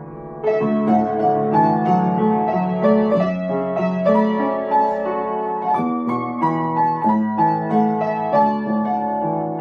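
Solo piano music: a gentle melody of single notes over sustained chords, picking up again about half a second in with a new phrase, notes struck a few times a second.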